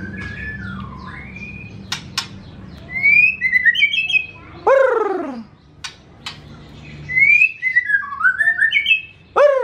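Caged white-rumped shama singing: two bursts of rising whistles and quick warbled notes, each ending in a loud downward-sliding note, with a few sharp clicks between phrases.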